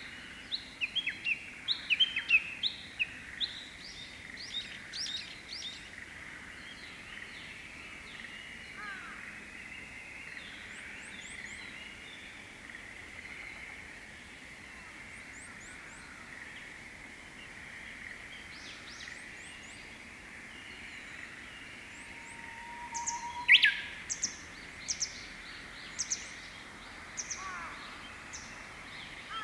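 Japanese bush warbler singing: about three-quarters of the way through, one long low whistle breaks into the quick, loud rising-and-falling 'hokekyo' flourish, followed by a string of short high notes. A burst of rapid high chirps comes in the first few seconds, over a steady outdoor background hiss.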